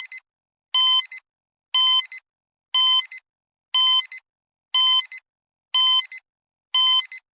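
Synthesized emergency alert tone beeping about once a second: each beep is a steady, buzzy tone of several pitches at once followed by a short pip, with dead silence between.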